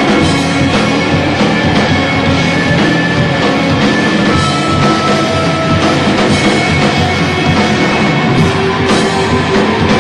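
Live rock band playing loud, with electric guitar and a drum kit, heard through the room.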